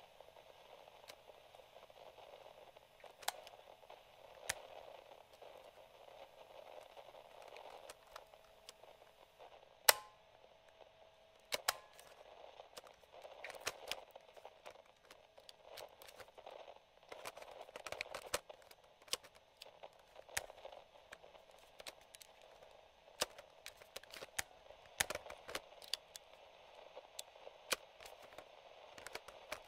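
Mechanical piano-key transport buttons of a vintage radio cassette recorder clicking over a light, steady radio-static hiss. A few scattered clicks, then one loud sharp click about a third of the way in as a key latches down, and a quick run of many small clicks in the last third as the controls are worked.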